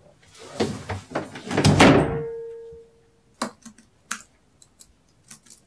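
Heavy thumping, like stomping footsteps from the flat upstairs, building to the loudest thud about two seconds in with a short ringing tail, then two sharper knocks.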